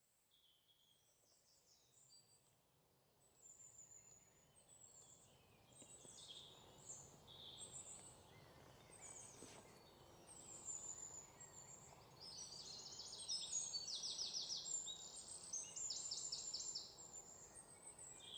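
Faint birdsong: short high chirps and trills, building from about three seconds in, with fast rattling trills in the second half.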